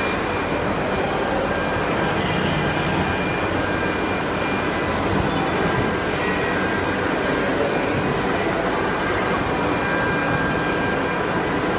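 Jinan Quick UB-481 CNC router running: a steady rushing whir with a few faint high, steady whines.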